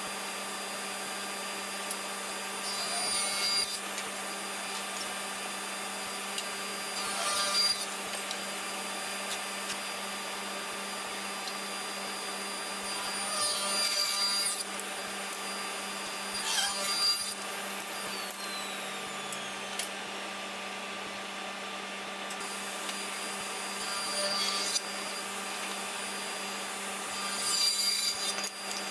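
Table saw running steadily, with about six short cuts of a second or so as small wooden pieces are pushed through the blade along the fence, each cut louder and rougher than the steady hum.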